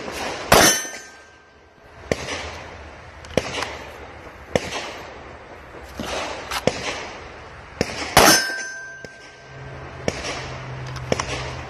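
9mm handgun shots: two loud shots about seven and a half seconds apart, each followed by a short metallic ring, with several fainter sharp cracks between them.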